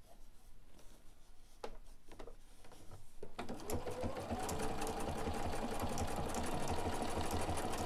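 BERNINA 770QE sewing machine: a few light clicks, then about three seconds in it starts stitching, its motor whine rising as it comes up to speed and then running steadily at a slow sewing speed.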